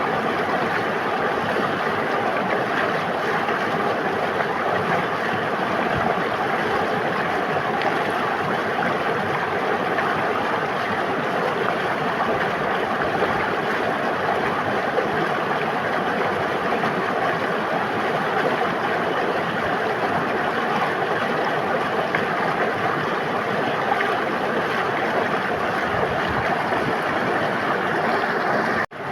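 River water flowing and rushing steadily, an even wash of noise. It cuts out for a split second near the end.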